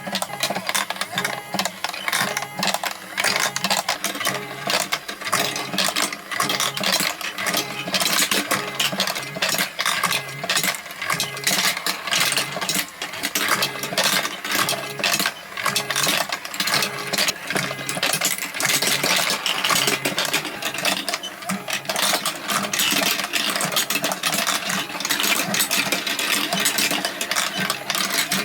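Marbles rolling and clattering through a block marble run: a dense, continuous stream of quick clicks and knocks as they drop and hit the track pieces, over a steady mechanical hum.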